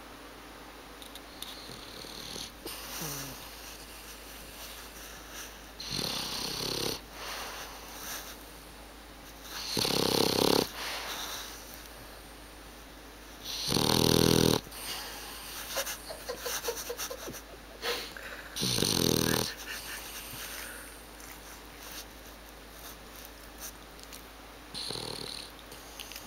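A sleeping pet snoring in loud, human-like snores, one about every four to five seconds, five in all; the two in the middle are the loudest.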